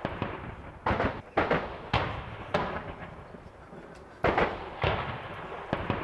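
Gunfire in battle: about eight loud single shots or blasts, unevenly spaced, each followed by a short echoing tail.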